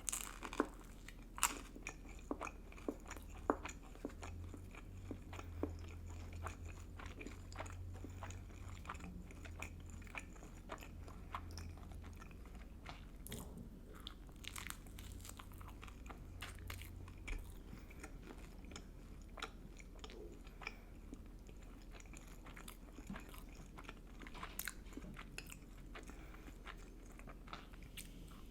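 Close-miked eating: a person biting and chewing with wet mouth sounds and crisp crunching snaps, the sharpest bites in the first few seconds.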